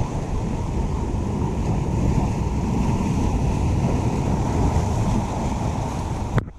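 Ocean surf breaking and washing over jetty boulders, mixed with wind rumbling on the microphone. The sound cuts off abruptly near the end.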